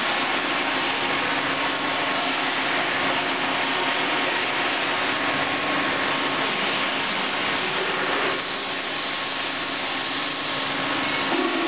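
Steady machine hum and whir with a faint constant tone running under it; it eases slightly about eight seconds in.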